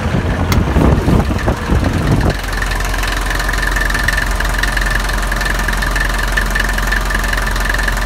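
Mercedes OM616 2.4-litre four-cylinder diesel engine idling steadily in an MB100 van. There are uneven low thumps over the first two seconds.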